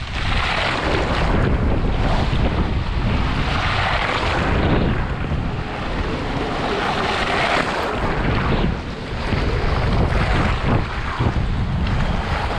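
Strong hurricane wind buffeting the microphone, with storm-driven water splashing and washing over a flooded dock.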